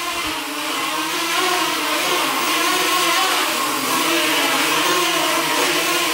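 A small DIY mini quadcopter's four brushless motors and propellers buzzing as it hovers and manoeuvres. The whine wavers up and down in pitch as the throttle is corrected.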